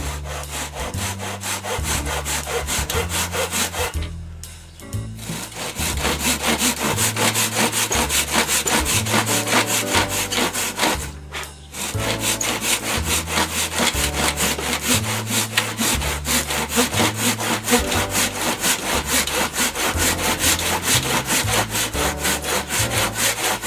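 A hand saw cutting through the end of a venetian blind to shorten it, in quick back-and-forth strokes, with two short pauses. A bass-heavy music track runs underneath.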